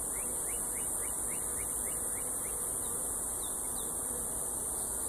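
Steady outdoor insect drone with honeybees buzzing around an opened hive. A faint short chirp repeats about three times a second and stops about halfway through.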